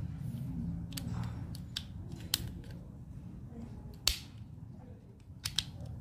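Small, sharp plastic clicks and taps from a car roof lamp's plastic base and slide switch as they are handled and fitted together by hand, with a few scattered clicks and one louder click about four seconds in.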